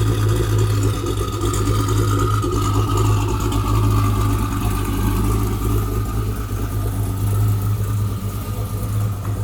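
Twin-turbo Jeep Grand Cherokee SRT's HEMI V8 idling steadily shortly after a cold start, a deep even rumble with a faint whine that rises and falls gently.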